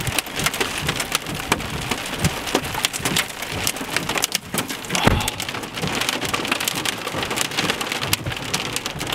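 Rain hitting the windshield and roof of a car, heard from inside as a dense, irregular spatter of drops. There is one louder thump about five seconds in.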